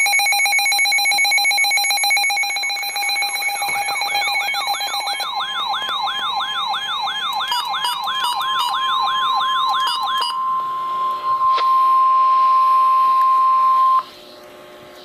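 Electronic emergency alert tones before a flash flood warning. First a rapid buzzing beep. Then a warbling siren tone sweeping up and down about two and a half times a second. Then a single steady tone near 1 kHz, the weather-radio warning alarm, which cuts off sharply near the end.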